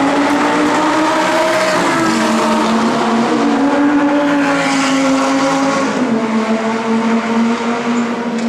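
Several Lamborghini Gallardo V10 engines running at once as the cars drive through a corner and pull away on a race track, their overlapping notes shifting up and down in pitch and getting a little fainter near the end.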